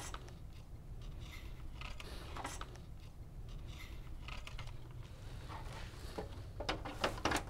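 Faint handling noise from the synthesizer's key bed assembly and its ribbon cables being moved and fitted back into the opened case: short, scattered scrapes, rubs and light clicks, coming closer together near the end.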